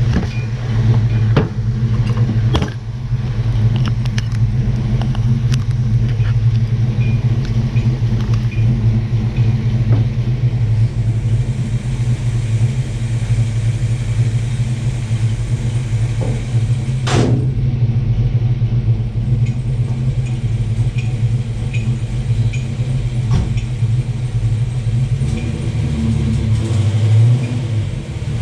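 Car engine running steadily with a deep, even drone, and a single sharp click about two-thirds of the way through.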